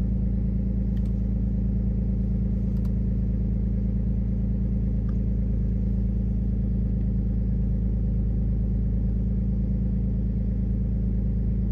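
Lexus GS300's 2JZ-GE straight-six idling steadily at a cold-start fast idle of about 1100 RPM, heard from inside the cabin. A few faint clicks come from the dash clock's set button being pressed.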